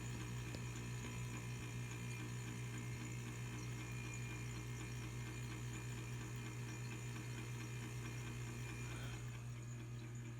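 Refrigerator's failing fan motor running with a steady low electrical hum; the motor is on its way out, cycling between slowing down and speeding up. The higher hiss thins out about nine seconds in.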